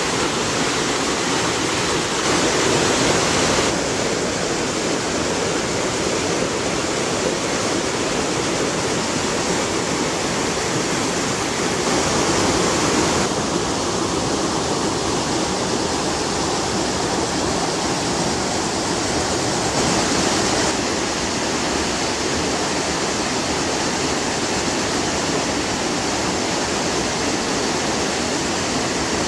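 Canyon stream running: a steady rush of water that changes character abruptly three times.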